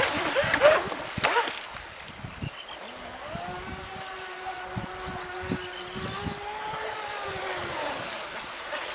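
Distant whine of a radio-controlled catamaran speedboat's brushless electric motor running across the water, a steady pitched hum that wavers slightly up and down. Wind thumps on the microphone now and then, and the first second or so is louder and rougher.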